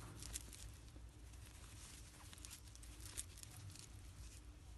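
Faint rustling and light scratching of a metal crochet hook drawing yarn through stitches, a series of small irregular scratches, over a low steady hum.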